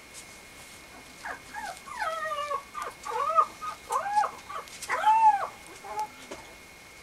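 Mame shiba puppy whining and yipping in a run of about half a dozen high, rising-and-falling calls as it plays with a knitted toy, starting about a second in.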